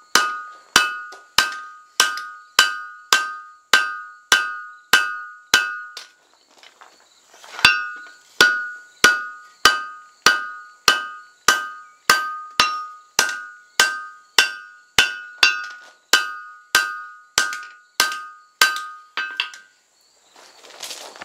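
Blacksmith's hand hammer striking a red-hot steel froe blank held in tongs on an anvil, about one and a half blows a second, each blow followed by a clear ring from the anvil. The hammering pauses briefly about six seconds in, picks up again, and stops shortly before the end.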